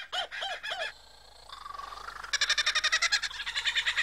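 Superb lyrebird singing mimicked birdsong. It opens with three short arching notes, pauses with a faint rising tone, then breaks into a fast chattering run of repeated notes just past halfway.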